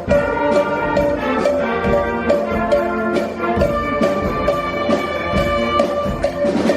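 Middle school concert band playing a number, with sustained wind chords over a steady beat of sharp percussion strikes; the number features a cowbell.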